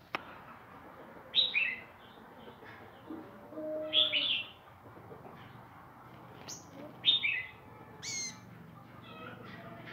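Sunbird calling in short, sharp chirps, falling in pitch, in clusters a couple of seconds apart, the loudest about a second and a half in, about four seconds in and about seven seconds in.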